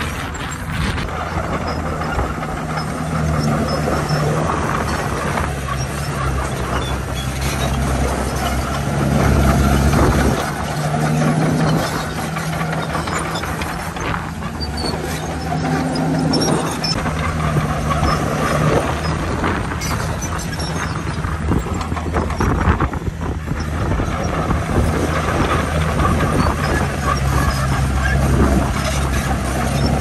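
Heavy diesel engines of a bulldozer and dump trucks running under load, the engine note swelling and easing several times.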